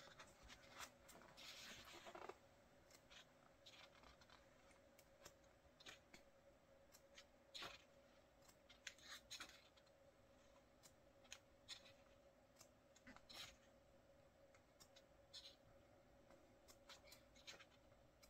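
Near silence, with faint paper rustles and scattered soft ticks as the pages of a thick photobook are turned by hand, over a faint steady hum.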